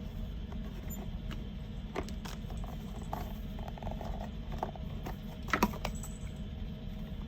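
Hands handling a GoPro camera and its plastic accessories and packaging: scattered light clicks and taps, the loudest few together about five and a half seconds in, over a steady low hum.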